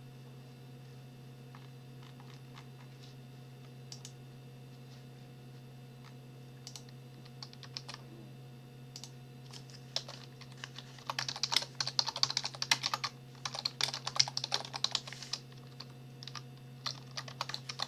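Typing on a computer keyboard: a few scattered key presses at first, then fast, continuous typing from about eleven seconds in, with a short pause before it resumes near the end. A steady low hum runs underneath.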